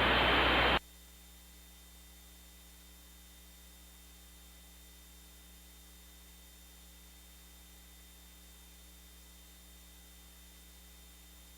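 Broadcast static hiss left over after the emergency alert voice message, cutting off abruptly less than a second in. After that, only a faint, steady electrical hum with light hiss remains.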